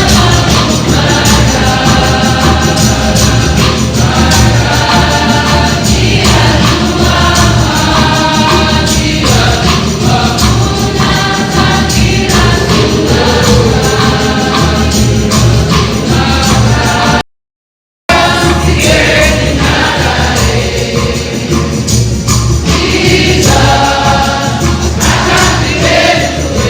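Choir singing gospel music with instrumental accompaniment. It breaks off into silence for under a second about two-thirds of the way through, then carries on.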